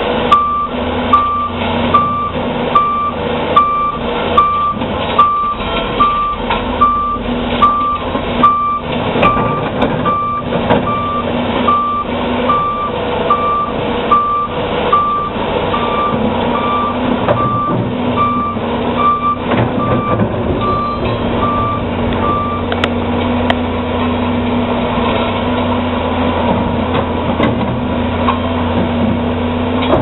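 Caterpillar crawler dozer's diesel engine running steadily while a reverse alarm beeps at an even pace, about once every 0.8 seconds. The beeping stops about 22 seconds in, and the engine runs on.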